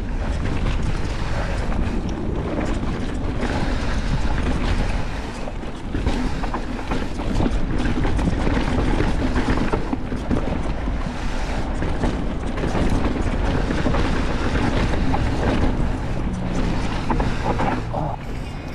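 Wind rushing over the microphone and mountain bike tyres rumbling down a dirt trail, with a steady run of rattles and knocks from the bike over the bumps.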